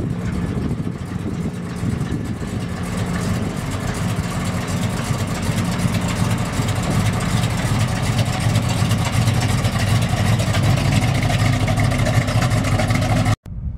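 A 1940 Plymouth coupe's 318 cubic-inch Mopar small-block V8, fitted with a Lunati Voodoo cam and an Edelbrock four-barrel carburetor, running steadily at idle through its exhaust. The sound cuts off abruptly near the end.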